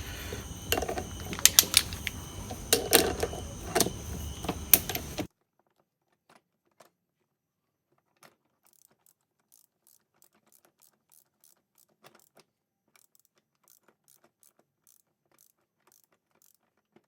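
Metal hand tools clicking and turning on the magneto flywheel (magnet) nut of a Yamaha RX135 engine as it is threaded on and tightened onto the crankshaft. About five seconds in the sound drops away suddenly to faint scattered ticks.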